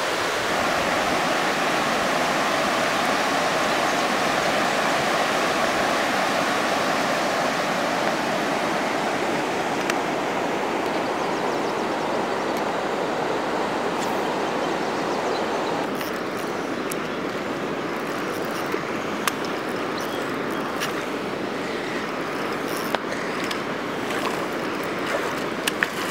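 River water rushing over rocky rapids, a steady noise with no tone to it. The rush eases a little about two-thirds of the way through, and a few light ticks and knocks come through over it.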